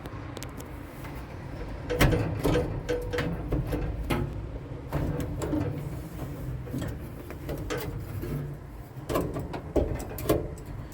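Steel drawers of a Kinchrome 9-drawer tool chest sliding open and shut on their metal runners, with a run of clacks and rattles starting about two seconds in.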